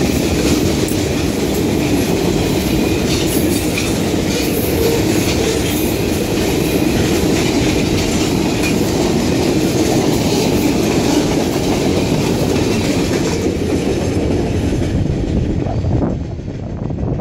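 Freight cars of a long train rolling past at close range: a steady rumble of steel wheels on rail, with sharp clacks as the wheels cross rail joints. The sound falls away near the end as the last car passes.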